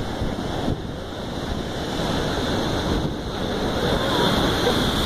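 Storm waves surging and breaking against a concrete sea wall, with wind buffeting the microphone. A wave smashes into the wall and throws up spray about four seconds in, the loudest part.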